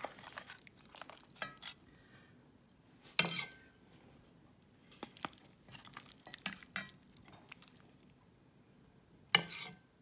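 Metal spoon clinking and scraping against an enamelled cast-iron casserole while stirring and lifting tender stewed lamb and vegetables, with soft wet squelches from the stew. Two sharper knocks of spoon on pot stand out, about three seconds in and near the end, with lighter taps in between.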